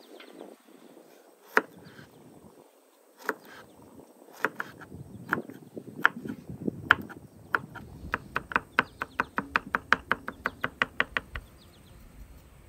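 Kitchen knife chopping garlic cloves on a wooden cutting board. A few separate slow cuts give way, about halfway through, to a fast even run of chops, about six a second, that stops suddenly near the end.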